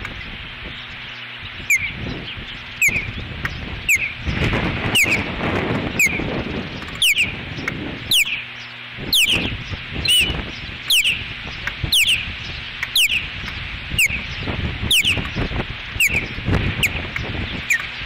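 Ospreys giving their alert call: a series of sharp, falling chirps about once a second. Wind gusts buffet the microphone underneath.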